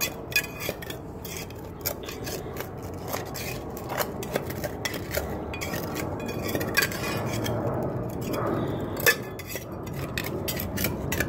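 Small metal hand tool scraping and clinking against concrete and grit inside a post hole as the hole is dug and cleaned out, with irregular sharp scrapes and clicks.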